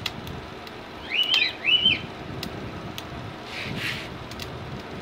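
A bird gives two quick chirps about a second in, each rising then falling in pitch, over a steady background hiss. A brief soft hiss follows near the middle.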